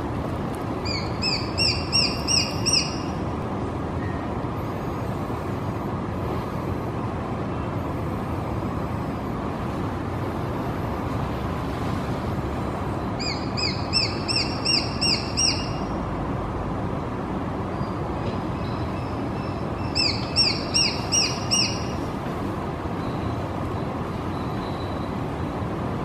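Juvenile Japanese sparrowhawk calling: three bursts of quick, rising, high-pitched notes, about four a second and eight or so to a burst. The first burst comes near the start, the second about halfway through and the third a little later. All of it sits over a steady low background rumble.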